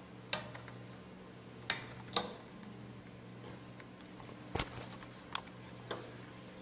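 Capped sample vials being set one by one into the holes of a clear plastic tray, giving about six short clicks and knocks, the loudest a little past halfway. A steady low hum runs underneath.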